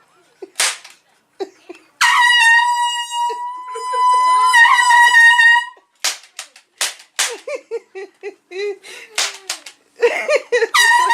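Handheld air horn blasting: one long steady blast of about four seconds starting a couple of seconds in, and another blast starting just before the end.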